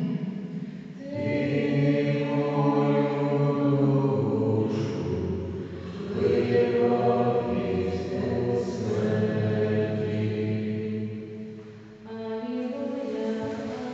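Voices singing a slow liturgical chant during Mass in a church, long held notes shifting in pitch every second or two, with a short pause about twelve seconds in.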